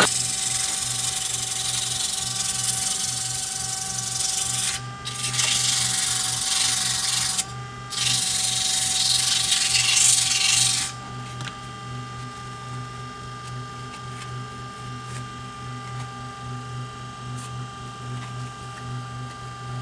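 Abrasive paper hissing against the inside of an oak mortar bowl spinning on a wood lathe, with two short breaks. About halfway through the sanding stops and only the lathe's steady motor hum is left.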